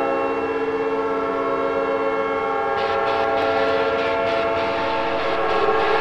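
Leslie Supertyfon RS5T five-chime air horn blasting as a hockey goal horn, held as one long steady chord. A rougher, noisier layer comes in under it about three seconds in.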